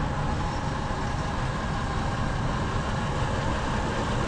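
Farm tractor's diesel engine running steadily at low revs, a constant drone heard inside a barn.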